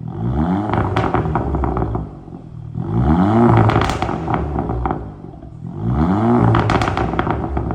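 Audi S3 8V's turbocharged 2.0-litre four-cylinder, with its rear silencer and resonator deleted, revved three times. Each rev falls away into a burst of pops and crackles from a stage 1 map set up for overrun crackles.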